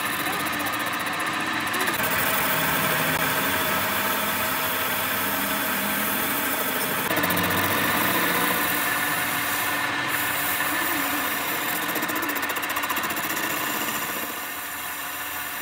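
Metal lathe running while a cutting tool faces a spinning metal part of a hydraulic cylinder: a steady, harsh cutting noise that eases a little near the end.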